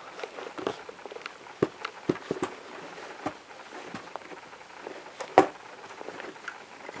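Hand rummaging through cloth packed in a case: fabric rustling with irregular soft knocks and clicks, and one sharper knock about five seconds in.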